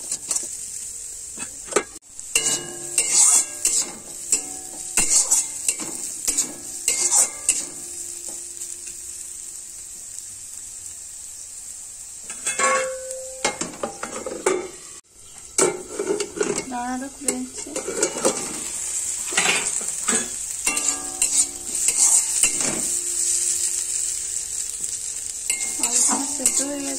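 Metal spatula scraping and stirring diced potatoes and carrots as they fry in an aluminium kadai, over a steady sizzle. A little before the middle the stirring stops and there is a clatter as a plate goes over the kadai as a lid to steam the vegetables. The stirring starts again in the second half.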